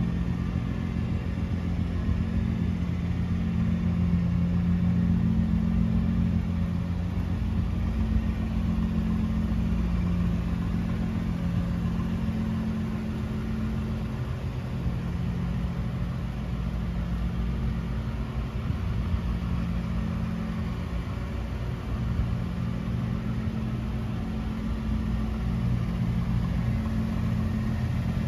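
Nissan GT-R T-Spec's 3.8-litre twin-turbo VR38DETT V6 idling steadily.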